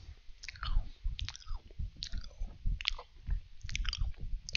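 Close-up chewing of crunchy Danish butter cookies: an irregular run of crunches and mouth sounds.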